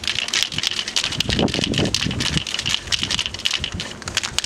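The mixing ball rattling inside an aerosol can of Rust-Oleum automotive primer as the can is shaken to mix the primer before spraying: a rapid, continuous run of sharp clicks.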